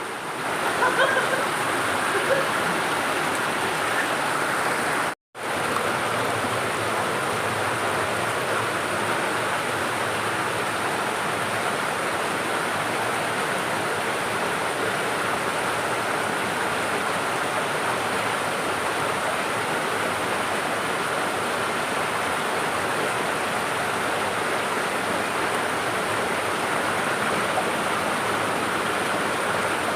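Waterfall pouring steadily, a constant rush of falling water. It cuts out for a split second about five seconds in.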